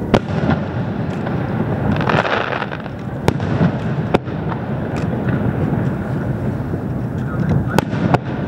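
Aerial firework shells bursting: about five sharp bangs, two of them close together near the end. A brief spell of crackling comes about two seconds in.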